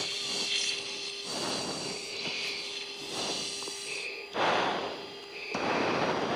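Breathing through an oxygen-mask microphone over a fighter's cockpit intercom: a series of rasping inhales and exhales about a second apart, the last two longer and louder, over a steady electronic hum.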